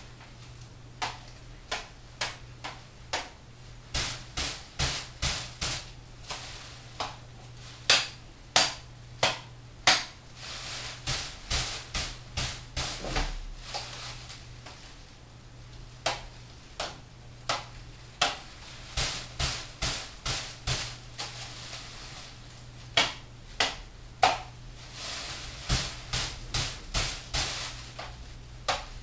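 A knife striking and scraping a hanging practice target, heard as sharp clicks and knocks in quick irregular runs of checks, cuts and stabs. A steady low hum runs underneath.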